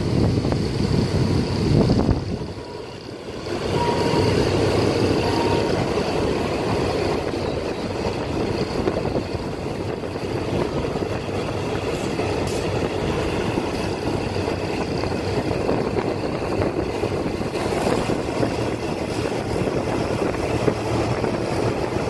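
A vehicle on the move: steady engine and road noise, dropping away briefly about two seconds in before returning.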